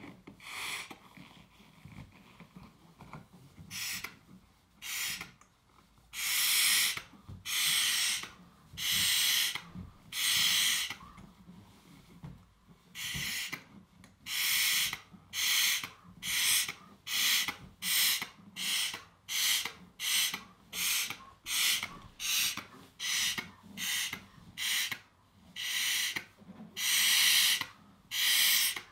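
Breaths of someone blowing up a 24-inch balloon by mouth: a run of hissing puffs of air, faint for the first few seconds, then about a second long each, then quicker, about two a second, from about halfway through.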